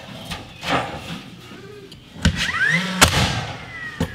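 Ladders being handled against a wooden wall: several knocks and thuds, the loudest about two and three seconds in, with a short squealing metal scrape between them.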